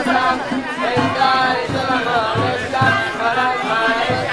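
Devotional singing with drum accompaniment: a melodic chant over steady low drum beats.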